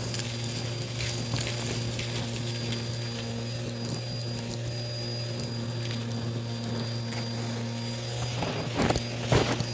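Bissell vacuum cleaner running steadily, a low hum with a high whine over it, as its hose tool works a shag rug. Bits of debris click and crackle as they are sucked up, with a couple of louder knocks near the end.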